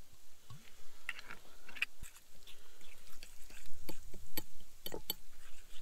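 Olive oil glugging once from a glass bottle into a bowl of chopped herbs, then a metal fork stirring the wet herb marinade, with squelches and repeated sharp clicks of the fork against the glazed bowl.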